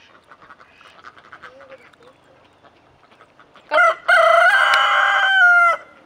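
Barred rooster crowing once, about four seconds in: a short opening note followed by a long held cock-a-doodle-doo that cuts off near the end. Before it, only faint sounds.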